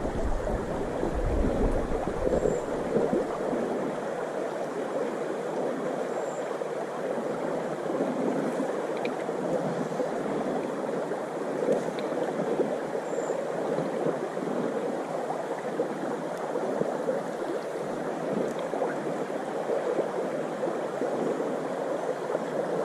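Water rushing steadily through a shallow riffle on a small river.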